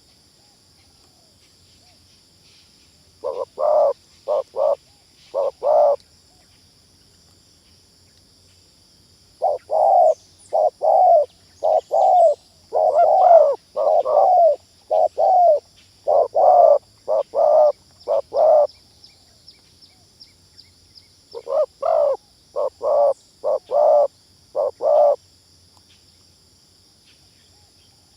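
Spotted dove (terkukur) cooing in three bouts of short, repeated coos, the longest bout in the middle. A steady, faint, high-pitched drone runs underneath.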